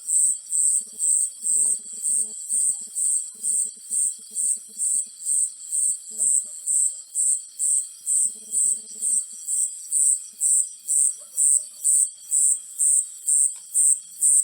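Cricket chirping in a steady rhythm, about two to three high chirps a second, with faint low pulsing calls now and then underneath.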